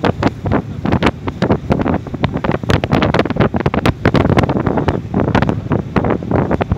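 Wind buffeting the microphone on the open deck of a moving boat, in rapid, irregular gusts over a steady low rumble.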